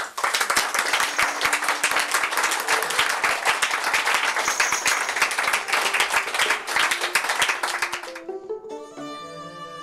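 Audience applauding at the end of a talk. The clapping stops after about eight seconds, leaving violin and cello music.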